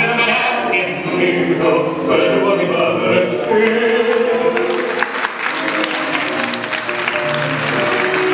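Recorded tango music with a singing voice playing over a dance hall's speakers. From about halfway through, audience applause rises over the music.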